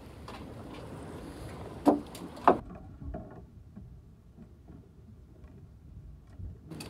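Two sharp knocks on a small fishing boat, about half a second apart, over the steady low noise of wind and sea. They are followed by a few faint clicks as the angler handles the bait basket and line at the gunwale.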